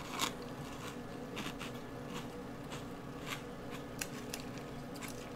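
Faint chewing and crunching of a mouthful of Trix cereal with mini marshmallows in milk, with scattered small clicks of a metal spoon in the bowl.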